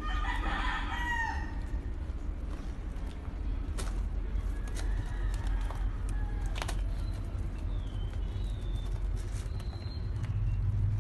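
A rooster crows once near the start, over a steady low rumble. Faint bird chirps and a couple of sharp clicks follow later.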